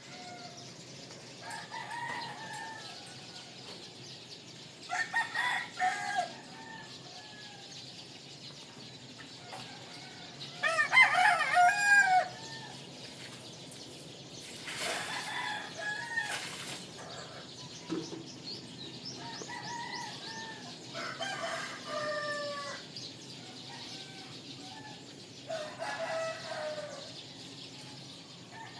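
Roosters crowing again and again, about six crows spread through the stretch, some faint and distant, the loudest about eleven seconds in. Small birds chirp faintly in between.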